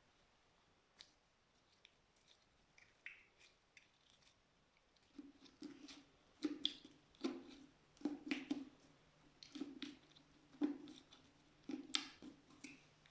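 Soft slime being squeezed and pressed by hand, giving wet clicks and small pops. The clicks are sparse at first, then from about five seconds in come thick and louder, often with a soft low squelch under them.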